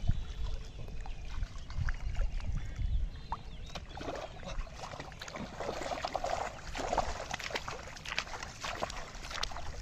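Splashing and sloshing in shallow floodwater as an arrow-struck fish thrashes at the surface and a man wades through the paddy. The splashes come in short irregular bursts from about four seconds in. Before that there is a low wind rumble on the microphone.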